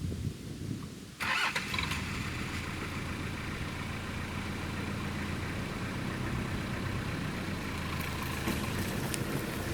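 Truck engine starting about a second in, then running steadily at idle.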